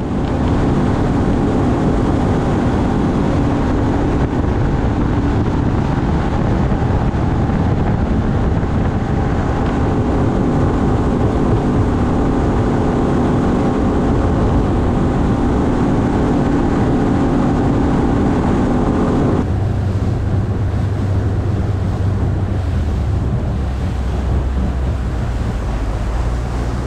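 Bass boat's outboard motor running at speed, with water rushing past the hull and wind on the bow-mounted microphone. About two-thirds of the way through, the engine is throttled back and its pitch drops to a lower steady note as the boat slows.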